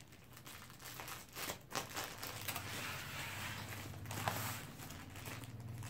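Scissors snipping and cardboard tearing as a heavily taped cardboard parcel is cut open, with irregular crackling and crinkling from the packing tape and the plastic wrapping. There is a sharper crack about four seconds in.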